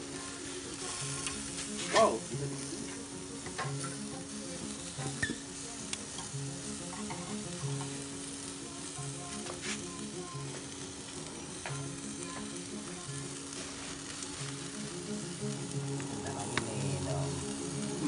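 Wood fire crackling and sizzling in a brick oven as a whole chicken roasts hanging over the embers, with scattered sharp pops throughout and one loud pop about two seconds in.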